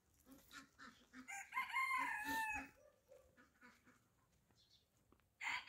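Rooster crowing once, a pitched call of about a second and a half beginning just over a second in, with soft clucking from the flock around it. A second crow starts near the end.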